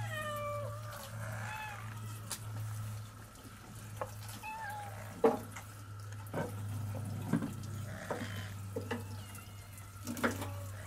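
Several cats meowing, with short falling cries near the start and a few more later. Sharp knocks of a knife on the board as fish is cut at a steel sink are heard several times, the loudest about five seconds in.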